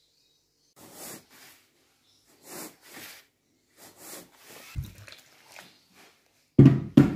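Hands mixing flour and water into dough in a plastic bowl: a series of short dry rustling, scraping strokes, then two loud thumps near the end.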